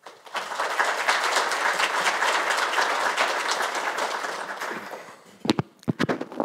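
Audience applauding, the clapping dying away after about five seconds.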